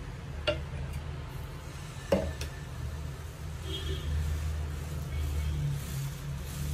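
Two sharp knocks of a steel ladle against the vessels, about half a second and two seconds in, over a steady low hum; the ladle is pouring dosa batter onto a non-stick tawa.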